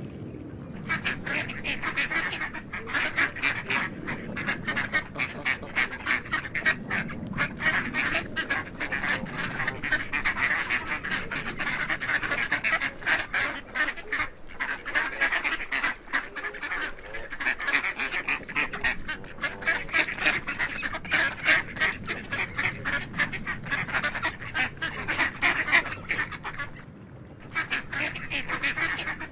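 A flock of ducks calling, many calls overlapping in a dense, continuous chatter, with a short lull near the end.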